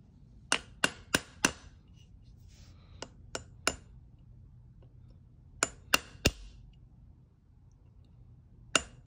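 Small hammer tapping a roll pin punch to drive the bolt catch roll pin into an AR-15 lower receiver: about a dozen light, ringing metal taps in short runs of three or four, a second or two apart, the last strikes to seat the pin flush.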